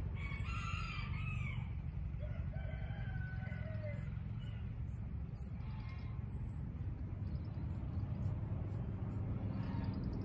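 A rooster crowing twice, the second crow lower and fainter, over a steady low rumble.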